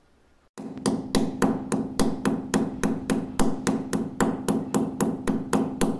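A hammer tapping a multi-pin picture hook into a wall: rapid, evenly spaced strikes, about five a second, starting about half a second in, over a steady low hum.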